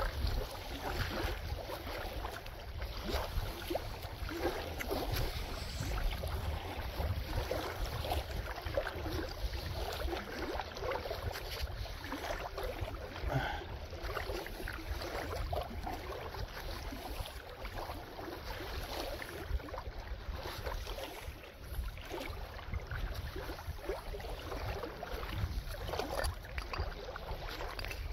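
Wet magnet-fishing rope being hauled in hand over hand through gloved hands: a continuous scratchy rustle dotted with small ticks, over a steady low rumble of wind on the microphone.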